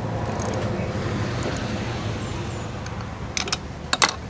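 A car's engine running nearby, swelling and then slowly fading, like a car driving off. A few sharp clicks near the end.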